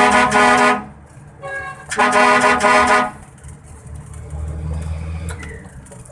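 Ban Pong electric horn on a vehicle sounding two loud, steady honks of about a second each, about a second apart, with a fainter short honk between them. A low steady hum follows after the second honk.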